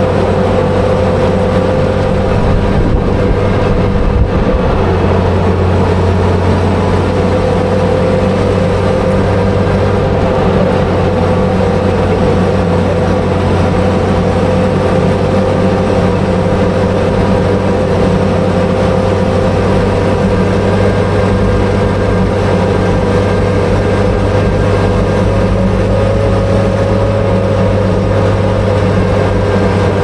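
Daimler Ferret Scout Car's Rolls-Royce B60 straight-six petrol engine running steadily under load as the armoured car drives along.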